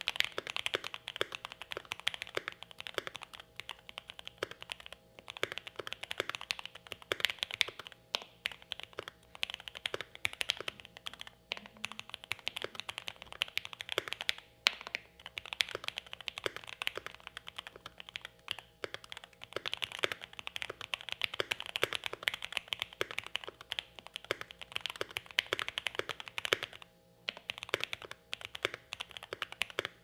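Continuous fast typing on a Mode 80 mechanical keyboard with lubed Lavender switches in an FR4 plate, gasket-mounted and foam-filled: a steady stream of muted key strokes broken by a few short pauses. The builder thinks the muted sound may come from too much foam in the build.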